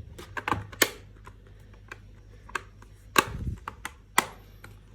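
Plastic laptop back cover being pressed into place, its clips snapping in with a series of sharp clicks; the loudest snaps come about three and four seconds in, the first with a dull knock.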